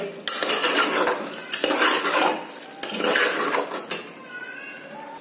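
Metal spoon stirring and scraping chicken masala against the inside of a pressure cooker, in three long scraping strokes.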